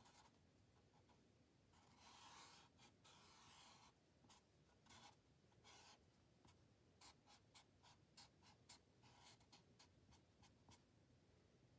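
Faint scratching of a felt-tip marker drawing on paper: many short strokes, with one longer stroke about two seconds in.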